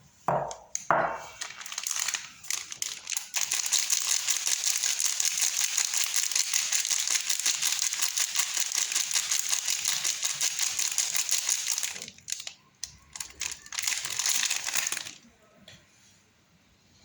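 Soap packaging being unwrapped: a few sharp clicks, then a long stretch of dense, continuous crinkling, a pause with scattered crackles, and a second shorter burst of crinkling before it goes quiet.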